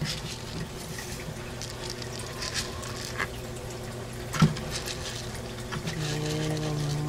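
Aquarium filter running: water trickling and splashing over a low steady hum, with scattered light ticks and one sharper splash or knock about four and a half seconds in. Near the end a held, pitched hum comes in and rises in pitch.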